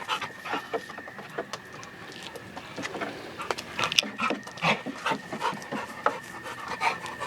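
A dog panting, with scattered short taps and rustles.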